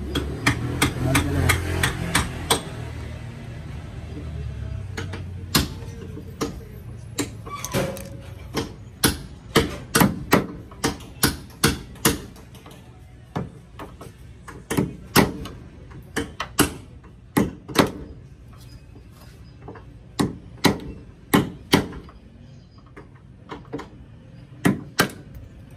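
Hammer blows on a Nissan Urvan's front door hinge, knocking out the worn original hinge bushing. A quick run of strikes comes in the first few seconds, then single blows and pairs at irregular spacing.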